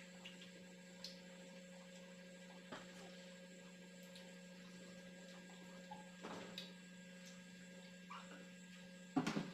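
Quiet room under a steady low electrical hum, with a few faint clicks and taps of people eating by hand from plates. A louder, sharp knock comes near the end.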